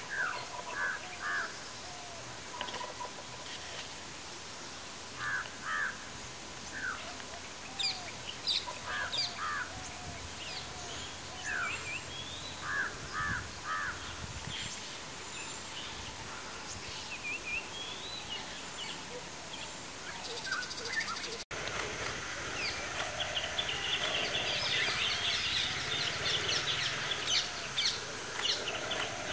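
Wild birds calling in short, repeated calls, some in quick pairs and triplets, over a steady high hiss. About three-quarters of the way through the sound drops out for an instant, and a denser chorus of chirping follows.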